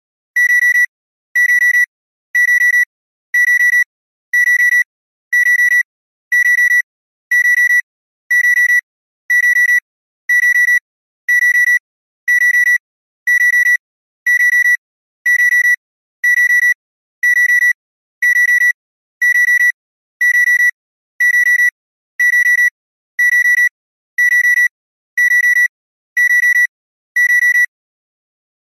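Digital alarm clock beeping: the same high electronic tone repeats about once a second, each beep about half a second long, at an even pace.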